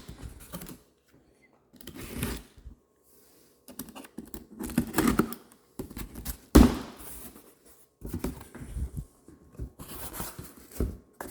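Cardboard shipping box being opened and handled: bursts of cardboard scraping, tearing and rustling with short pauses between, and one sharp loud knock just past halfway through.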